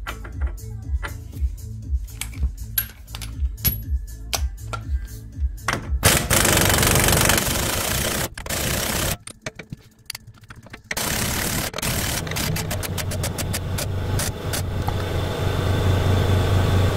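Background music with a steady beat, mixed with bursts of workshop noise: a loud rush of noise about six seconds in, a short gap, then rapid clicking that speeds up and runs together into steady noise with a low hum.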